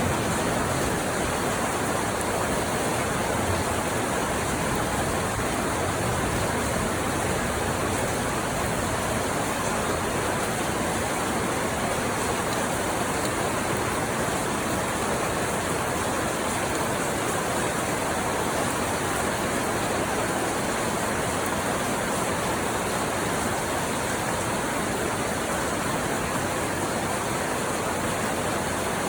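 Steady rainfall, an even unbroken hiss with no distinct drops or pauses.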